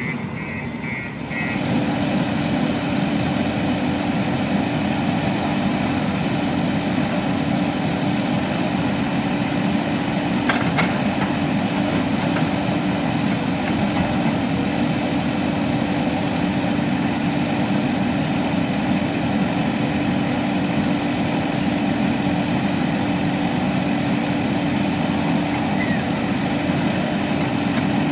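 JCB 3DX backhoe loader's diesel engine running steadily. A reversing alarm beeps rapidly and stops about a second in, as the engine grows louder.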